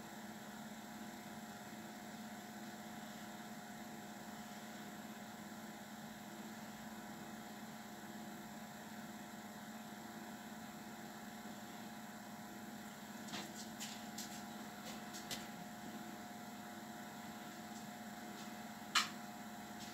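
Quiet steady electrical hum with faint hiss. A few faint clicks come about two-thirds of the way through, and one sharper click comes just before the end.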